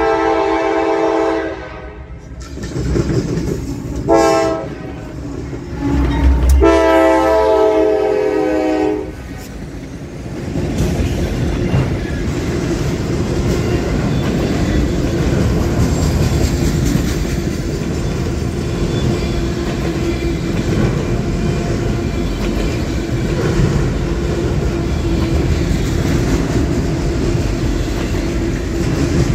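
A freight locomotive's air horn sounds three times: a long blast, a short toot about four seconds in, and another long blast ending about nine seconds in. Then a long string of autorack freight cars rolls past close by, wheels clattering and rumbling steadily on the rails.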